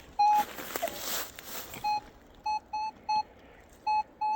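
Metal detector beeping: about seven short beeps at one pitch as the coil is swept back and forth over a buried target, with a rustling in the first couple of seconds. The target reads a lot like a silver half dollar.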